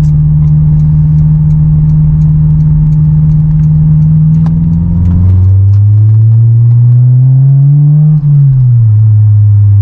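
Honda S2000's four-cylinder engine through a Skunk2 MegaPower cat-back exhaust, heard from inside the cabin. It holds a steady, loud low note while cruising. About halfway through the pitch drops with a gear change, and the revs then climb for a few seconds. A brief break for another upshift near the end brings the note lower again.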